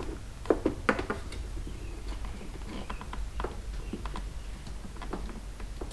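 Handling noise as an LED strip's wire is fed through the motorcycle's plastic trim: scattered light clicks and taps, with two sharper knocks about half a second and a second in, over a low steady hum.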